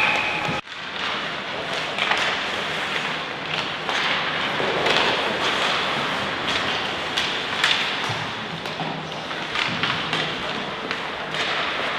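Game play in a youth team match: repeated thuds and sharp taps from the play, over the steady noise of the venue with faint players' voices. The sound cuts out abruptly for a moment just after the start.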